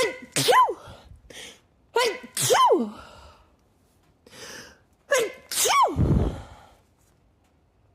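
A woman sneezing three times in quick succession, each a loud, sharp 'ah-choo' about two to three seconds apart, with a quick breath in before the last one.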